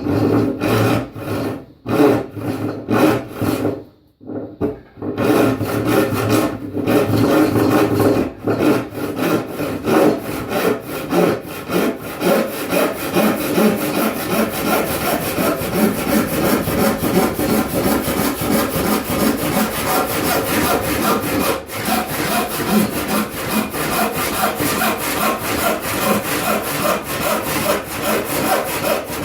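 Hand saw ripping a board along the grain, its teeth rasping through the wood stroke after stroke. The first few strokes are short and broken by a pause as the cut is started. After that comes a long run of steady, even strokes.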